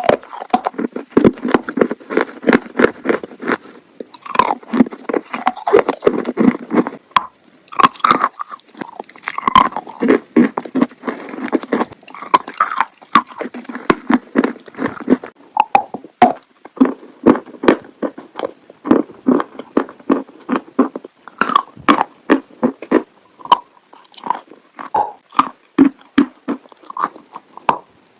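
Close-miked biting and chewing of chalk: a dense run of irregular crunches and crackles, with no pauses longer than a moment.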